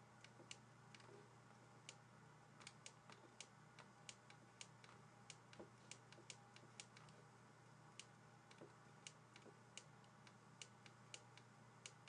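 Faint, irregular clicks of a stylus tapping on a writing tablet, one or two a second, over a low steady hum.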